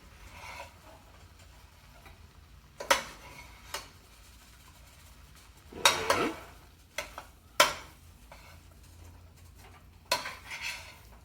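A spatula scraping and knocking against a frying pan while stirring and breaking up clumps of leftover rice: several separate, irregular strokes, the loudest about halfway through.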